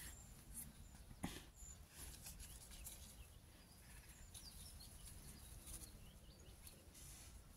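Near silence: faint outdoor ambience with a few faint bird chirps and a single sharp click about a second in.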